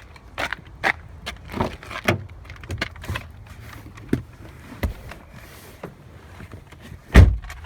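Walking footsteps crunching on the forest floor, one every half second or so, over a low rumble of wind on the microphone. A loud thump near the end is the loudest sound.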